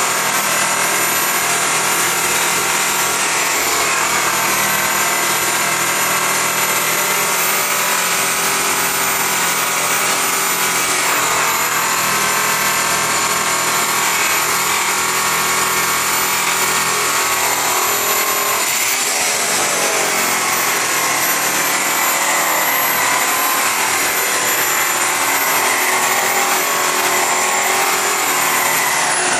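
Handheld electric buffer running steadily with its buffing pad pressed against an aluminum truck rim, a continuous motor whine with rubbing noise. About two-thirds through, the whine dips in pitch and recovers as the pad is loaded, and at the very end the motor starts to wind down.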